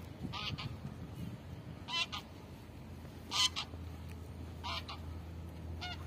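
A bird calling repeatedly outdoors: five short, harsh honking calls, one about every second and a half.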